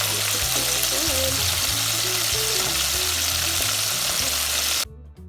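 Flour-coated chicken drumettes frying in hot oil: a steady, dense sizzle that cuts off abruptly near the end.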